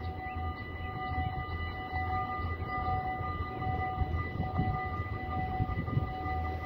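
Dutch level-crossing warning bells of the EBA type ringing steadily while the barriers lower, a steady multi-tone ring over a low rumble.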